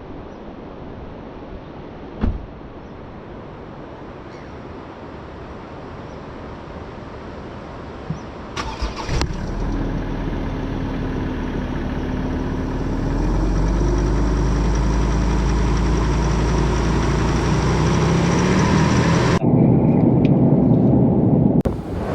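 Steady wind and surf noise, then a car engine starts about nine seconds in and runs. Its pitch steps up once near the middle and then holds steady.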